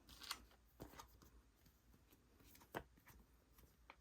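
Near silence with a few faint clicks and rustles of photocards and album packaging being handled.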